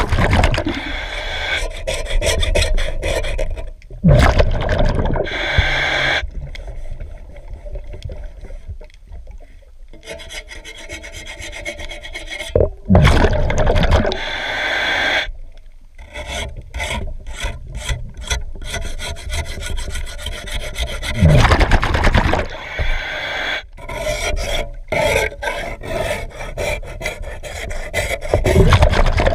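Hand scraper rasping hard marine growth off a boat propeller's blades underwater, in quick repeated strokes, heard through the water. Louder rushing surges come every several seconds, and the scraping eases off for a few seconds near the middle.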